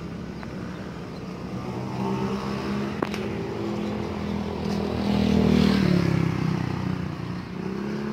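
A motor vehicle's engine passing close by on the street. It grows louder to a peak about five to six seconds in, then falls away with a drop in pitch.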